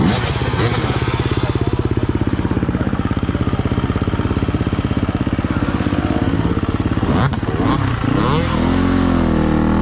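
Enduro dirt bike engines running close by at a steady idle, then revved up and down in short blips near the end.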